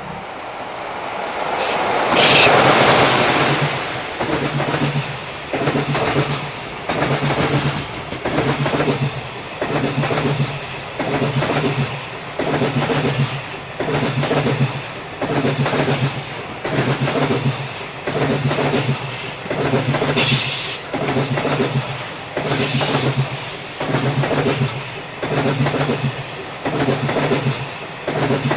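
Freight train passing at speed: the locomotive goes by about two seconds in, then a long string of freight wagons clatters past, the wheels giving a regular beat about once a second. Short high wheel squeals come through about two-thirds of the way in.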